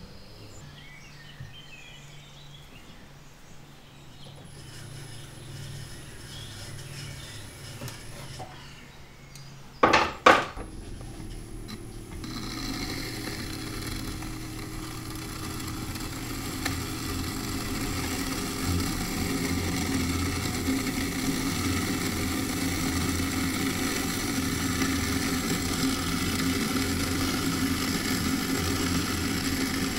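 Electric potter's wheel running while a small metal hand tool scrapes the side of a clay jar as it turns. The steady scraping over the wheel's hum starts about twelve seconds in and grows a little louder. Two sharp knocks come just before it.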